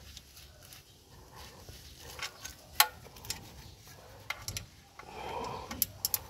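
Metal spanner working the bolts on an EGR pipe flange: a few sharp metallic clicks and taps, with some rubbing and scraping between them, as the pipe is tightened back up.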